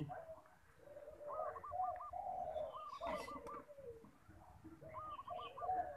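Zebra dove (perkutut) cooing: three phrases, each a quick run of about four rising-and-falling notes, with lower cooing notes between them.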